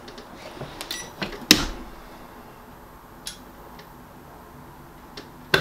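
Clamshell heat press clamped shut by its handle with a sharp clack about a second and a half in, after a few light clicks, then held closed for a four-second press before it is released with another clack at the end.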